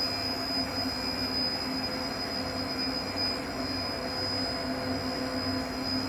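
Centrifugal sludge recirculation pumps running: a very loud, steady mechanical hum with a thin, high, constant whine above it.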